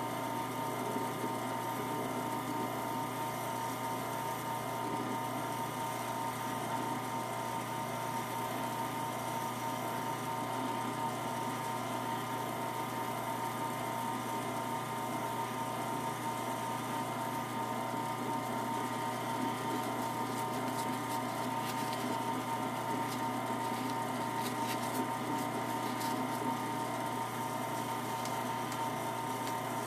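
Small wood lathe running steadily, a constant motor hum and whine, with a rosewood prayer-bead piece spinning on it.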